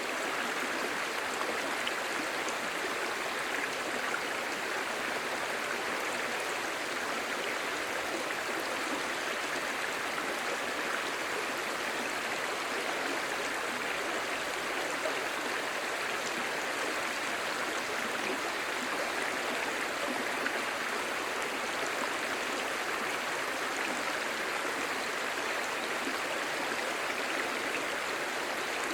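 Clear shallow stream babbling steadily over stones, an even rush of flowing water without breaks.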